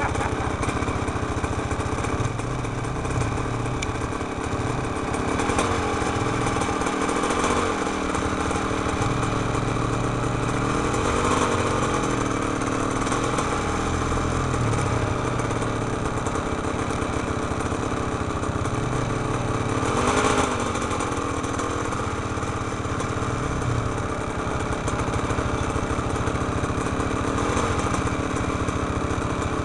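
Trail motorcycle engine running at low revs, with a few brief rises in revs.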